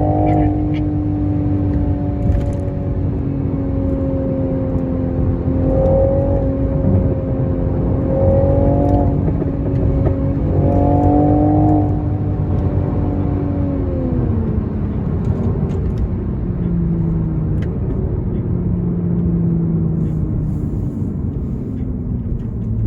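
2022 Toyota GR Supra engine and exhaust running under way, the pitch mostly steady with a few brief rises. About halfway through the pitch drops, then falls gradually.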